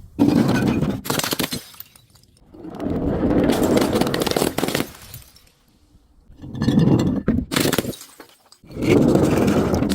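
Glass bottles being crushed and shattering, in four crunching bursts of about one to two seconds each, full of sharp cracks and tinkling fragments.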